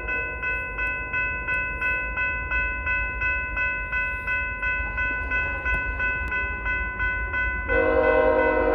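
A Norfolk Southern locomotive horn breaks off at the start, leaving a road-crossing bell ringing about twice a second over the low rumble of the approaching train. The horn comes back in near the end.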